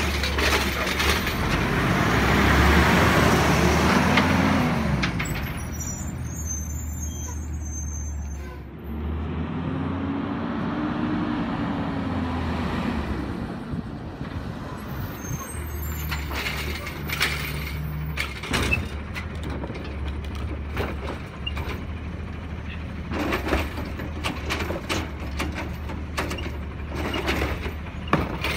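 Heil automated side-loader garbage truck running, its diesel engine revving up and falling back twice, with an air-brake hiss a few seconds in. Short knocks and clatters come in the second half as it moves up to the next carts.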